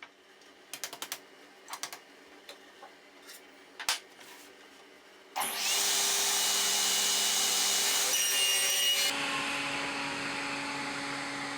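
Light clicks and knocks of handling, then an electric power tool starts about five seconds in and runs steadily for about seven seconds. Its pitch drops partway through, as if it has come under load, and it then stops.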